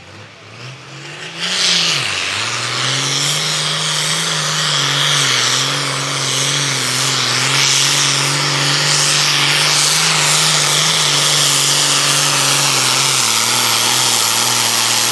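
Turbocharged diesel engine of a John Deere super farm pulling tractor running flat out under load as it drags the weight sled. It comes up to full power over the first second or so and its note dips briefly about two seconds in, then holds a steady drone with a loud hiss over it.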